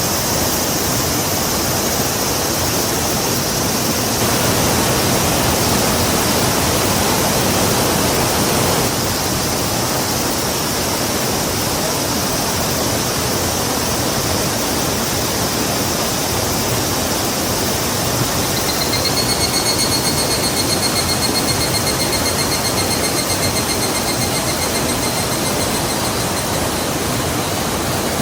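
Rushing river water, a steady loud roar of noise. About two-thirds of the way through, a high, pulsing trill joins it for several seconds.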